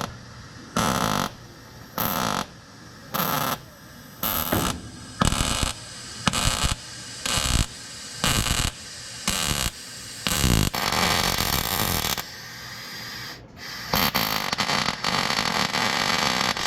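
Welder laying short stitch welds on the Jeep's sheet metal: about a dozen buzzing, crackling bursts of half a second each, roughly one a second, with one longer bead of about three seconds past the middle.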